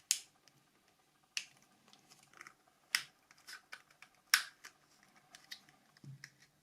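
Sharp plastic clicks and snaps from a Nokia C5 phone's housing being pried apart and handled: four loud clicks roughly a second and a half apart with lighter ticks between.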